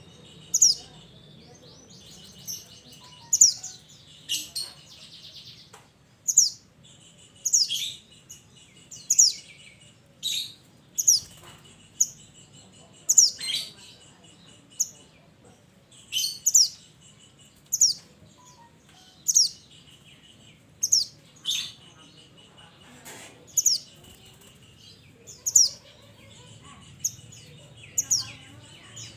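Minivet calling: a series of thin, sharp whistled notes, each sliding down in pitch, repeated about every second or so, with a dry buzzing trill between many of the notes.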